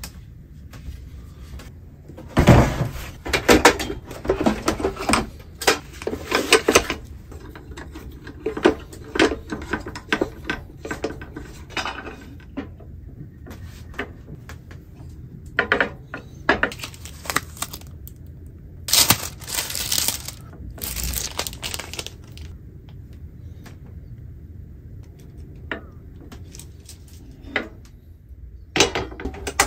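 Metal cookware, a two-part grill pan and a cassette gas stove, being handled and set down on a wooden counter: a run of clatters and knocks, with busy stretches about two to seven seconds in and again around twenty seconds in.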